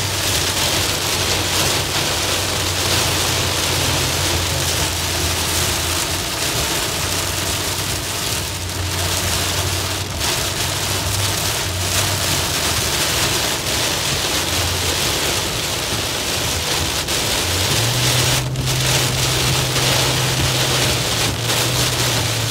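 Heavy rain drumming on a pickup truck's windshield and body, heard from inside the cab over the low steady drone of the truck driving. The drone steps up in pitch about eighteen seconds in, and a few brief knocks cut through the rain.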